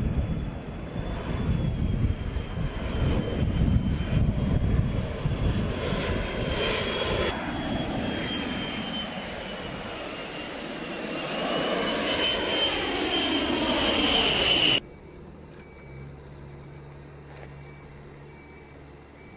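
Twin General Electric TF34 turbofan engines of a Fairchild Republic A-10 Thunderbolt II flying low past: a steady high-pitched whine over a heavy rumble, growing louder as the jet closes in. About fifteen seconds in the sound cuts off suddenly to a faint, quiet background.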